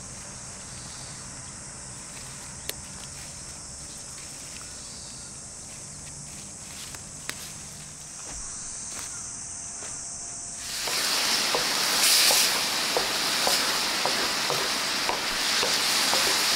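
A steady high insect trill in a bean field, with a couple of sharp clicks. About eleven seconds in, louder sizzling and crackling takes over: yard-long beans and thick fried tofu stir-frying in a miso sauce in a hot frying pan.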